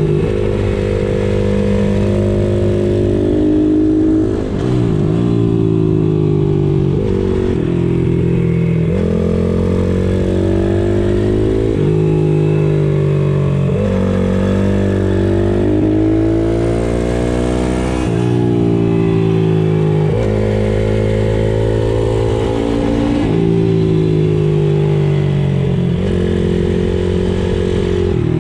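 Pit bike's single-cylinder four-stroke engine ridden hard. The note climbs in steps as it revs up through the gears, then falls away when the throttle is closed, over and over.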